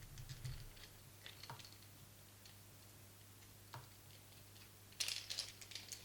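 Scattered light clicks and taps from handling an articulating camera magic arm and clamp, with a short burst of rattling clicks about five seconds in.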